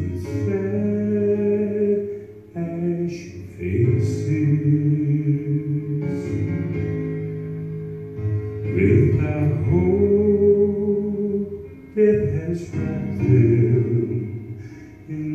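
A man singing a slow gospel song into a handheld microphone, with sustained notes over an instrumental accompaniment.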